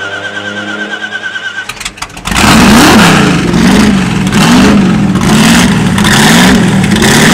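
De Tomaso Pantera GT4's Ford 351 Cleveland V8 turning over on the starter with a pulsing whine, then firing and catching about two seconds in. Once running, it is blipped repeatedly, the revs rising and falling about once a second.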